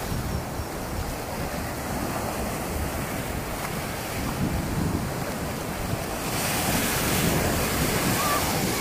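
Small sea waves washing in the shallows at the shore, with wind buffeting the microphone. The surf grows louder from about six seconds in.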